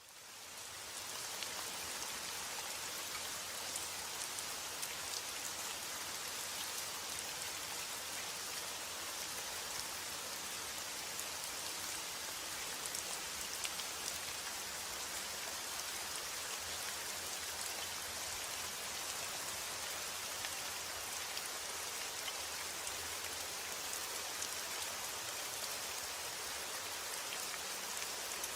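Steady rain falling, an even hiss of many drops with scattered sharper drop taps. It fades in over the first second or two, then holds steady with no thunder.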